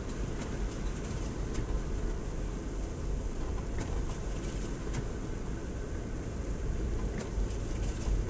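Ford Explorer driving slowly in a low gear on a snow-covered road, heard from inside the cabin: a steady low engine and road rumble, with a few faint clicks.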